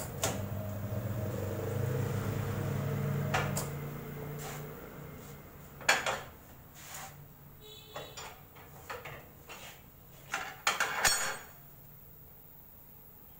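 Bright M806 tyre changer's turntable motor running with a steady hum for about three and a half seconds while a tubeless scooter tyre is worked back onto its rim, then stopping. After it come a series of sharp metal clanks and knocks, with a brief squeak about midway.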